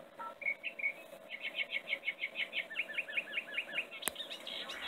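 A small songbird singing: a few scattered chirps, then a fast run of short chirp notes, about six a second, from about a second in. A single sharp click near the end.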